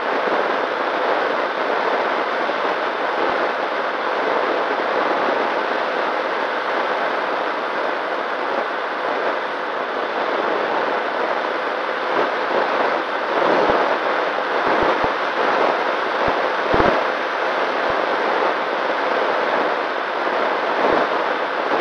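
Nano Talon FPV plane in flight, heard through its onboard camera: a steady rush of its electric motor and propeller mixed with wind on the microphone, with faint steady tones through it. The wind grows gusty in the second half, with a handful of short bumps on the microphone, the biggest about two-thirds of the way through.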